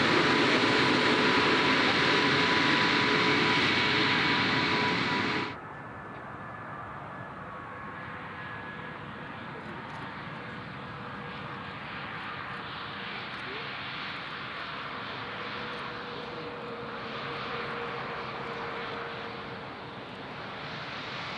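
An Airbus A220's geared turbofan engines taxiing close by, loud and steady with a whine of several held tones. About five and a half seconds in it cuts off abruptly to the quieter, steady hum of a Boeing 737 MAX 9's jet engines farther off as it taxis, with one low steady whine.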